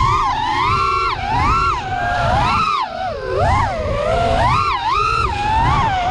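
ImpulseRC Helix FPV racing quadcopter's four T-Motor brushless motors and propellers, heard from the onboard GoPro: a high whine of several close pitches that swoops up and down about once or twice a second as the throttle is worked through the turns. Underneath runs a rumble of wind buffeting the onboard microphone.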